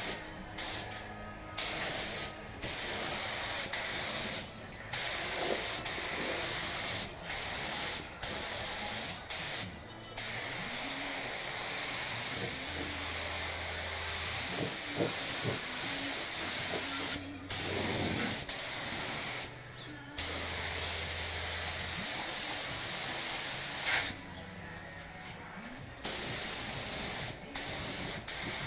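Pneumatic paint spray gun hissing as it sprays, the trigger released and pulled again many times so the hiss stops and restarts in short gaps.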